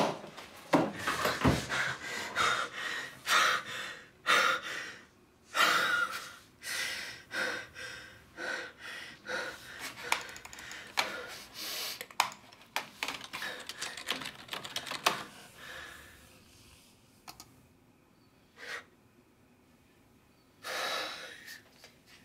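Rapid typing on a computer keyboard in irregular bursts, mixed with sharp gasps and heavy breaths. The typing stops after about 16 seconds, leaving a couple of single clicks and one more loud breath near the end.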